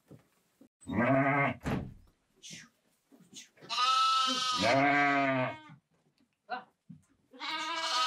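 Farm livestock, sheep or goats, bleating: a short bleat about a second in, a long drawn-out bleat through the middle, and another beginning near the end.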